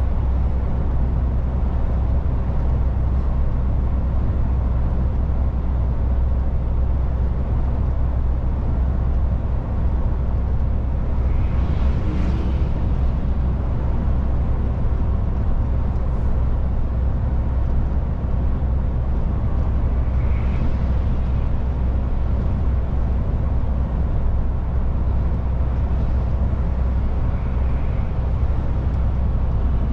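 MAN truck driving along, its engine and road noise a steady low drone that holds even throughout.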